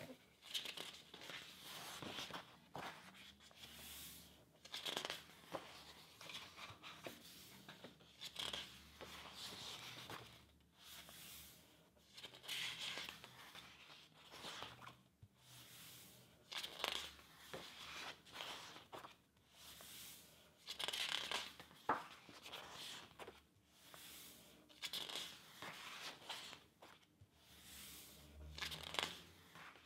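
Pages of a large hardcover book being turned by hand, one after another: a paper swish and rustle every second or two as each page is lifted, flipped and smoothed flat.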